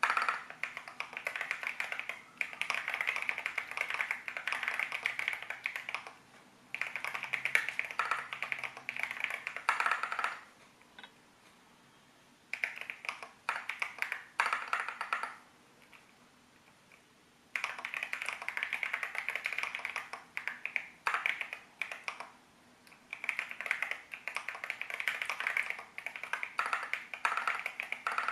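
Typing on a Keychron Q13 Max Alice-layout mechanical keyboard with Gateron Jupiter Banana tactile switches: quick runs of sharp, poppy key clacks, broken by two pauses of a couple of seconds each.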